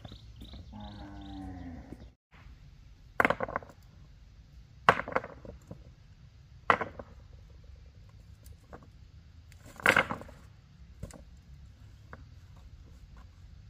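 A low, drawn-out animal call near the start, then four loud, sharp knocks spread over the following several seconds, each with a short ring after it.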